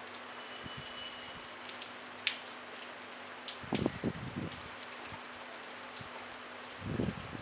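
Light rain falling steadily, with sharp ticks of single drops landing close by. A cluster of low thumps comes about four seconds in and another near the end.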